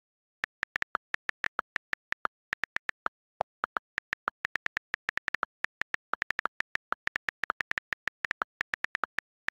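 iPhone on-screen keyboard key clicks, a quick irregular run of short ticks as a text message is typed, some ticks a little lower in pitch than others.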